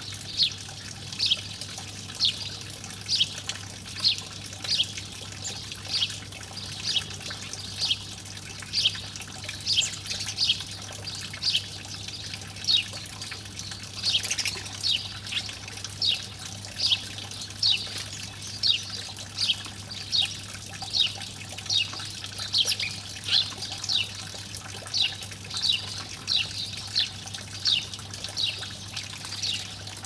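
House sparrow chirping over and over: short, falling cheeps about one and a half a second, with a faint steady low hum underneath.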